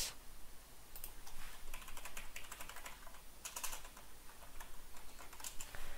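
Typing on a computer keyboard: a few short runs of keystroke clicks.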